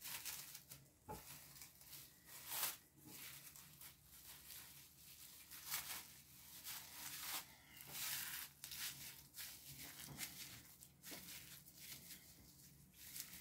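Plastic cling film crinkling and rustling faintly and irregularly as it is gathered and twisted shut around a ball of salad.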